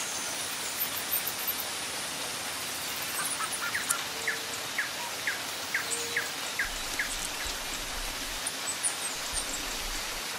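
Steady rush of river water tumbling over a low weir, with a small bird chirping repeatedly, about two short notes a second, through the middle of it.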